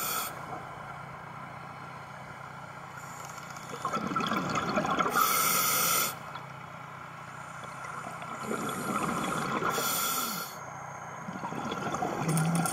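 Scuba diver breathing through a regulator underwater. Hissing breaths and rushes of bubbles come in turn, a cycle about every four seconds.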